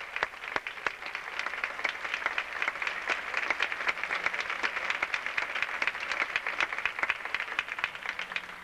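Theatre audience applauding, a dense, steady clapping that thins out and stops near the end.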